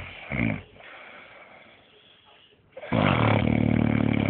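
A man snoring loudly in his sleep: a short snort about half a second in, a quieter breath out, then a long, loud snore starting near three seconds.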